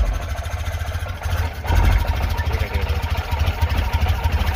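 Tata Nano CNG's two-cylinder engine running unevenly and misfiring, its beat dipping briefly a little over a second in before picking up again. The mechanic traces the misfire to a faulty O2 sensor.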